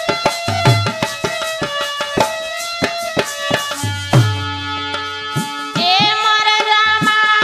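Dholak playing a steady folk rhythm, its bass head giving deep strokes that slide in pitch, under a held melody line. About six seconds in, a woman begins singing a sohar folk song over it.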